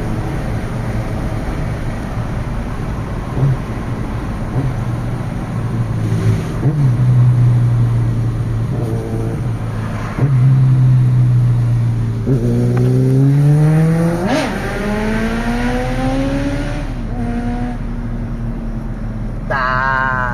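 Honda CBR1100XX Super Blackbird's inline-four engine running, its pitch climbing twice in a row about two-thirds of the way in as it accelerates through a gear. A short wavering high tone comes near the end.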